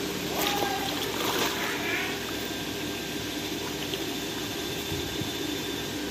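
Pond water sloshing and trickling around a person wading slowly through it, with a faint steady hum underneath.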